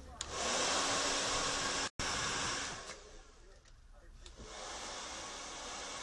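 Handheld hair dryer blowing with a steady rush of air and a faint hum. It switches on about a quarter second in, cuts out for an instant near two seconds, fades away around three seconds, and comes back on steadier and quieter about a second and a half later.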